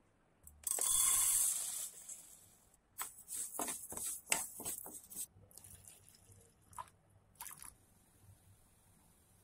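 A loud hissing rush lasting about two seconds, then dry split lentils rattling and clinking as a steel spoon scoops them in a steel vessel: a quick run of clicks for about two seconds, with a couple of short clinks after.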